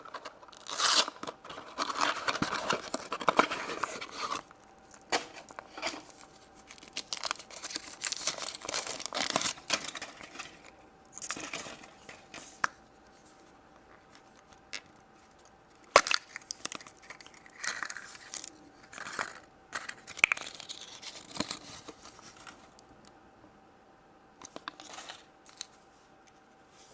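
Foil wrapper of a chocolate egg being torn and crinkled off by hand, in irregular bursts with pauses. A single sharp click about two-thirds of the way through is the loudest sound.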